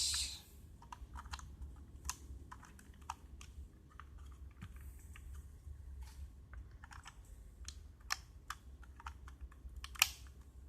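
Irregular light plastic clicks and taps from RJ45 plugs on a freshly crimped UTP cable being handled and pushed into the ports of a network cable tester. One sharper click comes about ten seconds in.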